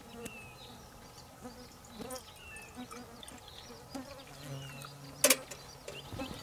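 A flying insect buzzing close by: a low steady hum that grows louder for about two seconds near the end. Small birds chirp in the background, and there is one sharp click about five seconds in.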